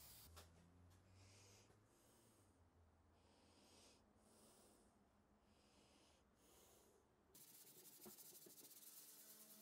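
A faint run of about six short hissing strokes, then from about seven seconds in a steady fine scratching as a sanding pad is rubbed over the painted steel lamp housing.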